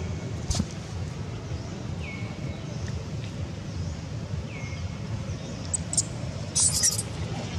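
Outdoor background with a steady low rumble. Over it, a faint high call falls in pitch and then holds briefly, three times about two seconds apart. A short high hiss comes near the end.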